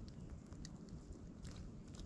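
A few faint, scattered ticks and crackles from a small kindling fire being lit and fed with twigs, over a low steady rumble.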